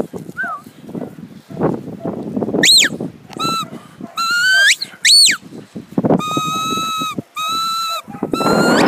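Sheepdog handler's whistle commands: a string of sharp whistled notes, two quick up-and-down sweeps, then longer level notes that flick upward at the end, directing a working border collie around sheep.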